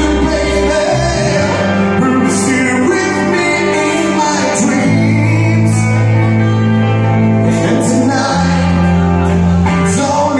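Live rock band playing a cover song: electric bass holding long low notes, a drum kit with repeated cymbal strikes, and electric guitar, with a voice singing.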